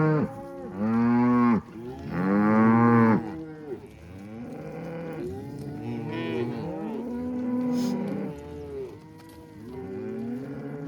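A herd of Black Angus cattle mooing, many calls overlapping. Two loud, close moos come in the first three seconds, then a steady chorus of fainter moos from around the herd.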